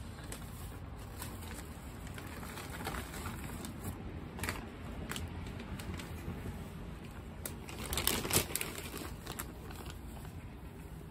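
Plastic bag of potting mix crinkling and soil rustling as gloved hands scoop the mix into a pot: scattered short crinkles and crumbles, loudest in a cluster about eight seconds in.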